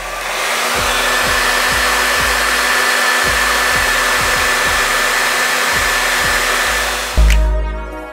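Remington hair dryer with a diffuser attachment running while diffusing curls: a steady rush of air with a high motor whine. It shuts off suddenly about seven seconds in.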